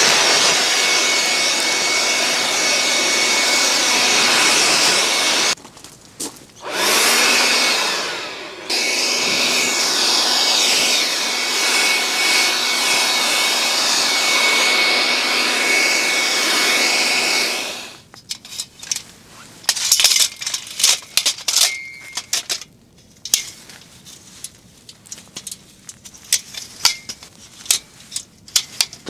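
A small electric motor running with a steady whirr and a faint high whine, cut off briefly twice in the first nine seconds and stopping about two-thirds of the way through. After it stops there are scattered clicks and knocks.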